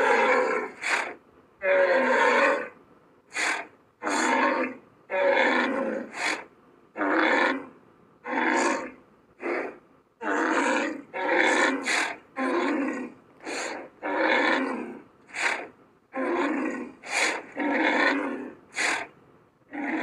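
Cape buffalo calls: a run of about twenty rough, noisy grunts and bellows, longer calls of about a second alternating with short, sharp ones.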